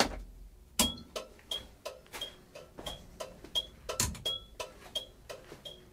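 Turn-signal flasher of a Piaggio Ape Classic 400 ticking steadily with the indicators on, about three clicks a second, every other click with a faint high chirp. A louder switch click comes at the start and again about four seconds in.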